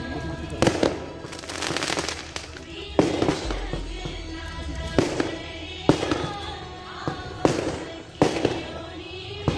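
Firecrackers going off at irregular intervals as sharp cracks, with a quick crackling run about one and a half to two and a half seconds in, over background music.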